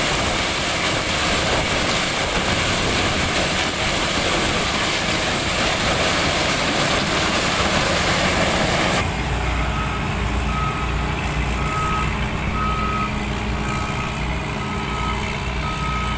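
A heavy machine's diesel engine running with loud, dense noise, then an abrupt change about nine seconds in to a steadier low engine sound with a reversing alarm beeping a little more than once a second.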